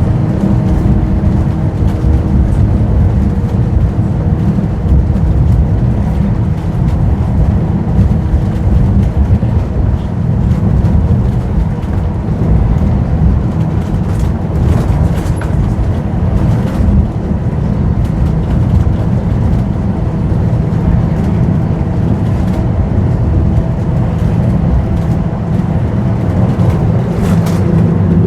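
Historic tram in motion: a loud, steady low rumble with a faint steady hum over it, and a few brief clicks and rattles around the middle and near the end.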